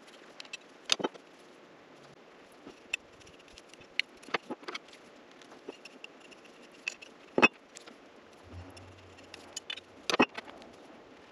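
Scattered sharp metallic clicks and clinks at uneven intervals, a few louder knocks among them: small footpeg cleats and a 2.5 mm T-handle hex key being handled and worked against a billet footpeg as the cleats are screwed in one by one.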